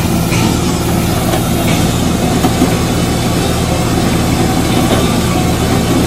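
Bobcat skid steer's diesel engine running steadily, with an even low engine note throughout.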